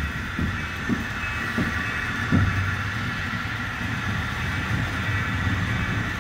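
HO-scale model trains running on the layout's track: a steady whirring from their small motors and wheels. A few soft low thumps fall in the first couple of seconds.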